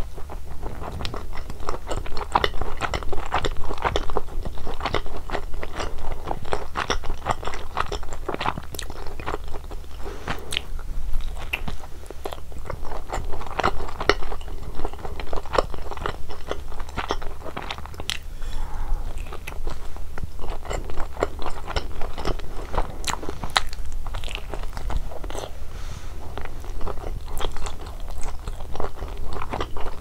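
Close-miked bites and chewing of cheese pizza: crisp crackles from the crust mixed with soft, wet mouth sounds, coming in clusters as each bite is chewed.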